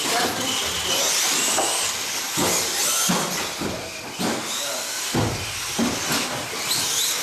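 Several 1/18-scale electric RC off-road cars racing together, their motors whining and sliding up and down in pitch as they speed up and slow down, with scattered clicks and knocks.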